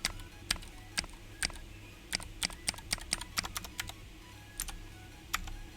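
Keys of a GK61 mechanical keyboard fitted with clicky Gateron Blue switches being pressed one at a time: an irregular run of sharp clicks, coming quicker for a while in the middle, as the keys are tested.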